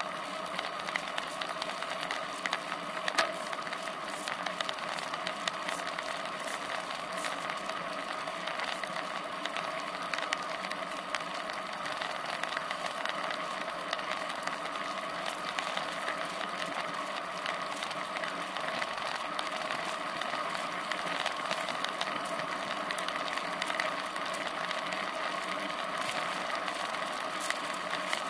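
Road bicycle rolling along asphalt, heard from a camera clamped to its own seat post: a steady hum of tyre and road noise with small rattles and clicks throughout and one sharper click about 3 seconds in.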